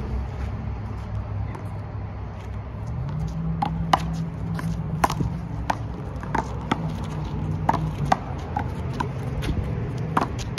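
Rubber handball rally: the ball is slapped by bare hands and smacks off the concrete wall and court, about a dozen sharp smacks at uneven intervals, starting about four seconds in.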